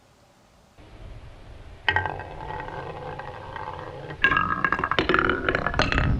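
Glass marbles rolling down a marble-run slope track. The rolling starts about a second in, grows louder about two seconds in, and from about four seconds in turns to rapid clicking and clinking as the marbles strike each other and the track.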